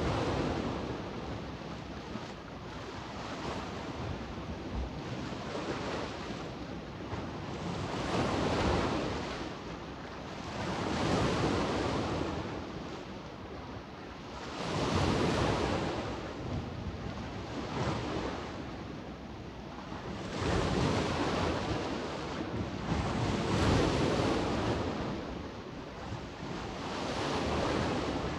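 Small Adriatic Sea waves washing onto the shore, the surf rising and falling in a swell every few seconds, with some wind in the background.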